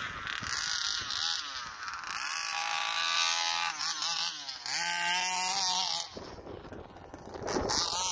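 Two-stroke petrol engine of a Rovan Baja 1/5-scale RC buggy revving up and down as it is driven. It holds high revs for a few seconds, then drops away about six seconds in.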